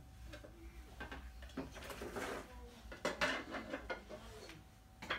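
Small wooden toy pieces knocking and clattering together as they are handled, in irregular clicks with the loudest knocks about three seconds in, and a brief rustle a little before them.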